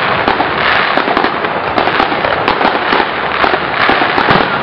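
Aerial fireworks bursting overhead: a dense, continuous run of loud bangs and crackle from many shells going off at once.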